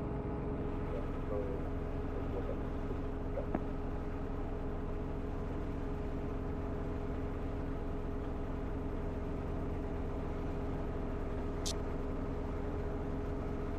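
Training helicopter's engine and rotor running steadily in a low hover, heard from inside the cabin: a constant drone with a steady whine. A faint click comes about three and a half seconds in, and a short high chirp comes near the end.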